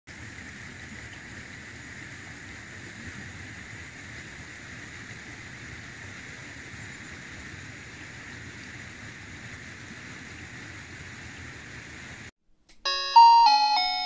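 Steady, even background hiss with no distinct calls or events. About thirteen seconds in it cuts off and a loud bell-like chime jingle begins, a short tune of plinking tones.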